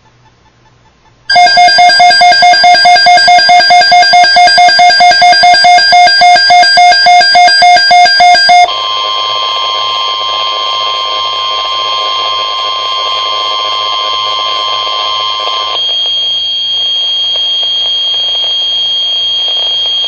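Weather radio emergency alert: a loud, rapid electronic alarm beeping at about four beeps a second for some seven seconds, then a steady warning alarm tone near 1 kHz, the NOAA Weather Radio warning alarm tone, that stops about 16 seconds in, leaving radio hiss with a faint high whine.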